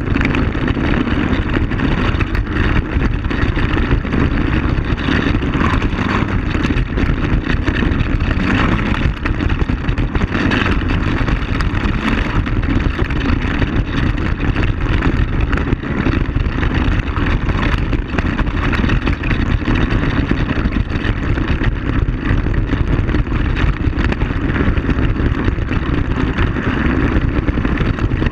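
ATV (quad bike) engine running steadily while riding along a gravel dirt track, with tyre and wind noise mixed in.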